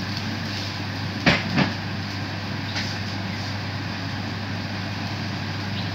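Steady hiss of a frying pan of bitter gourd, black bean sauce and a splash of water cooking on a gas stove. Two knocks come close together about a second in.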